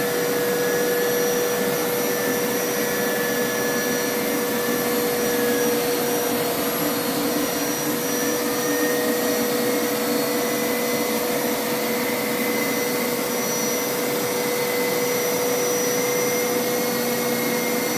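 Hoover Power Scrub Elite carpet washer running continuously as it is pushed over carpet in wash mode. It makes a steady rush of suction noise with a constant hum.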